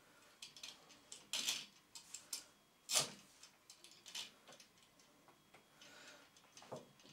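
Small irregular metallic clicks and scrapes from a brass Protector miner's safety lamp as its striking mechanism is pushed into the base. The sharpest click comes about three seconds in.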